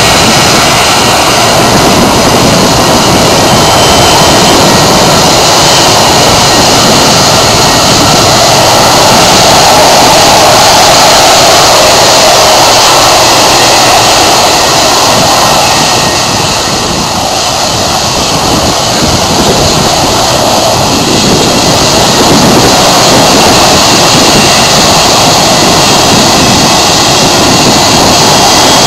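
McDonnell Douglas MD-80-series airliner's rear-mounted jet engines running very loud at close range as the plane taxis past and turns at the runway end, a steady roar that eases slightly about two-thirds of the way through.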